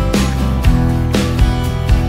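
Background music with a steady beat of about two beats a second.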